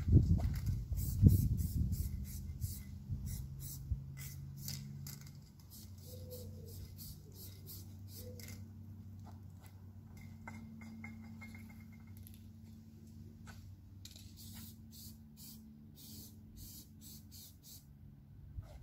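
Aerosol spray paint can hissing in many short bursts, over a steady low hum, with a low rumble during the first two seconds.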